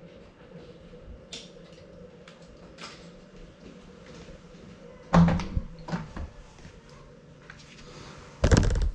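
Door being handled and opened: faint scattered clicks, a sharp knock about five seconds in, then a louder rattling thump of the door near the end.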